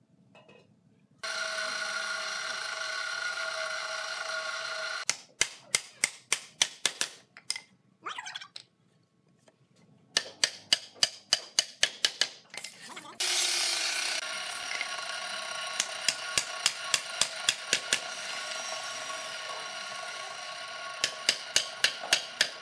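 Wooden block hammered against a hardwood table frame to drive tenons home into their mortises: sharp knocks in several quick runs of about three to four blows a second. A steady hum runs beneath much of it.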